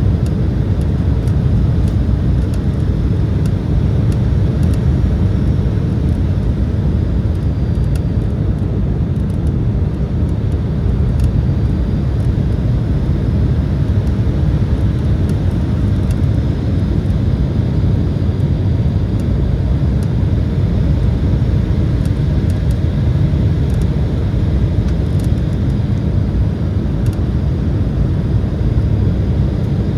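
Steady cabin noise inside an Embraer E175 airliner in flight: a low, even drone of airflow and its CF34 turbofan engines, with no sharp events.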